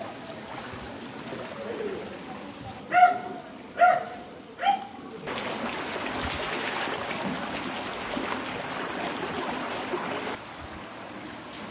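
Outdoor noise of water in a flooded street. About three to five seconds in come three short, loud pitched calls. After that a louder steady hiss runs for about five seconds, then drops off suddenly.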